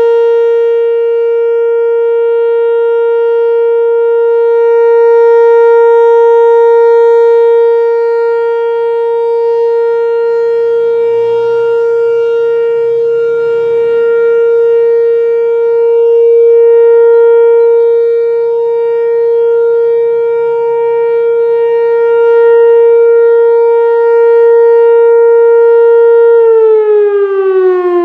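A siren sounding one loud steady tone, then winding down in pitch near the end.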